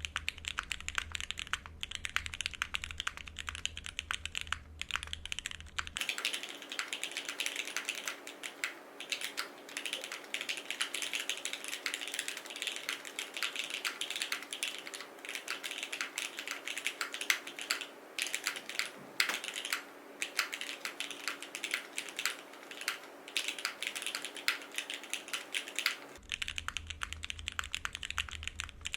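Continuous fast typing on a Cycle7 mechanical keyboard with lubed and filmed Gateron Oil King linear switches, an FR4 plate, no case foam, Cherry stabilisers and GMK keycaps: many keystrokes a second. A low hum under the typing drops out about six seconds in and returns near the end.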